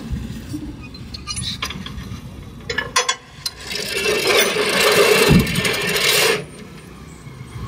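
Low engine rumble with a few sharp knocks, then, about four seconds in, a loud rasping hiss that lasts nearly three seconds and cuts off suddenly.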